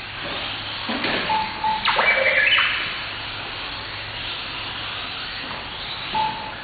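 1/18-scale electric RC cars racing, their motors whining in rising and falling sweeps as they pass. Short beeps sound a few times, and there is a louder burst with stepped tones about two seconds in.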